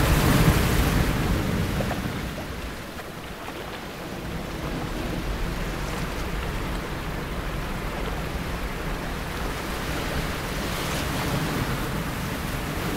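Sea waves washing onto a beach in a steady surf, louder at first, easing about three seconds in, then building again.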